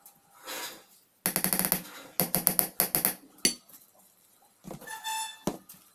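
Round black metal cake pan rapidly rattled and knocked against the countertop in two quick runs, about eight knocks a second, to settle and level a soft cream layer. A brief ringing tone follows near five seconds in.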